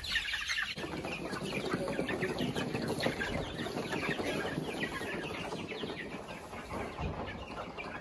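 A flock of young chicks peeping continuously, many short overlapping cheeps.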